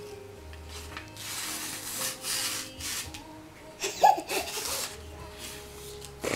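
Paper being slowly torn by hand in a series of rough ripping strokes, about one a second, with a brief loud high squeal about four seconds in.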